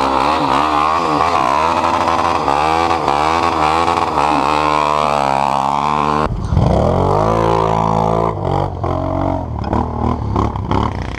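Quad bike (ATV) engine revving up and down while riding. About six seconds in the sound cuts to another engine whose pitch drops and then climbs again in uneven bursts.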